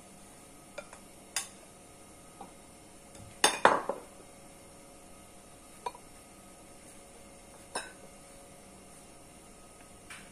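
Ceramic bowls and plates clinking and knocking against each other, with kitchen tongs tapping on the dishes. A scattering of single sharp knocks, and a quick cluster of several louder ones about three and a half seconds in.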